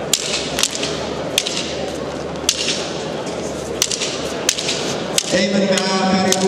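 Matrag fighting sticks clacking together in sharp single strikes, irregularly about once a second, over the murmur of a crowd. Near the end, a chant or music with steady held notes starts up.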